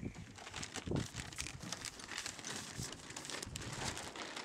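Dacron sailcloth crinkling and rustling in irregular crackles as a small dinghy's sail is handled and hoisted, with a louder low thump about a second in.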